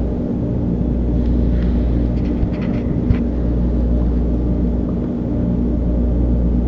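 Loud, steady low droning hum with several held bass tones layered over a deep rumble, which the resident takes for a bass-tone machine running in another apartment. A few faint clicks come about two to three seconds in.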